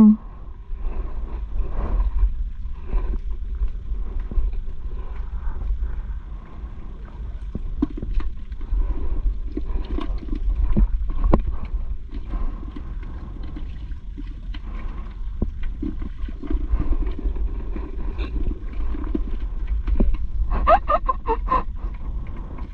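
Steady low wind rumble and water lapping around a small wooden outrigger canoe, with scattered sharp clicks and knocks from unhooking fish and handling the line. A brief voice sounds near the end.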